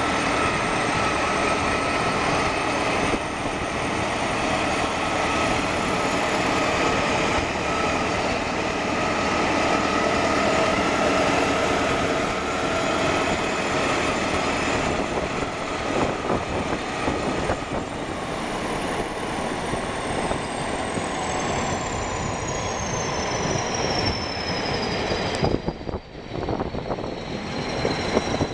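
Several crawler bulldozers' diesel engines running hard together, with the clatter of steel tracks, as they tow a heavy steel structure on crawler units through mud. A high whistle falls slowly in pitch over the last ten seconds or so.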